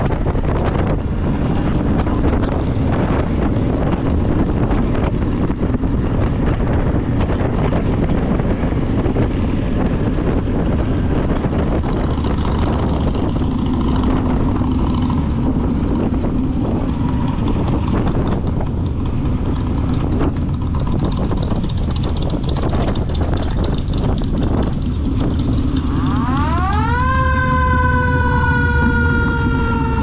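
Motorcycle riding on the road: steady engine and wind noise. Near the end a loud pitched wail comes in, rising quickly and then falling slowly.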